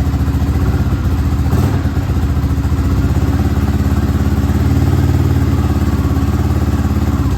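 Yamaha Raptor 660 ATV's single-cylinder four-stroke engine running at a steady low speed with an even, rapid pulse, swelling slightly in the middle.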